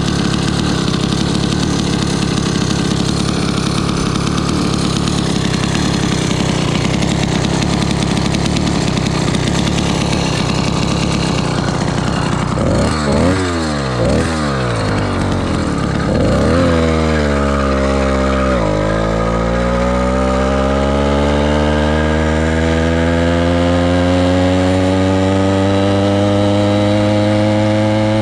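Firestorm Zeda 80 two-stroke bicycle engine with a drilled exhaust cap, idling steadily, then blipped twice about halfway through. It then revs up, dips sharply for a moment, and climbs steadily in pitch as the bike pulls away and gathers speed.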